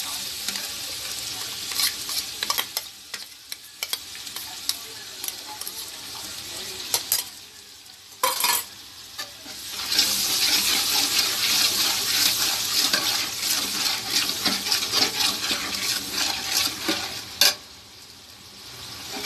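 Ginger and garlic paste frying in hot oil in a large aluminium pot, sizzling while a steel ladle stirs and scrapes against the pot. The sizzle is fainter for the first half, with a couple of sharp knocks about seven and eight seconds in, then grows louder about ten seconds in, and a last sharp knock comes near the end.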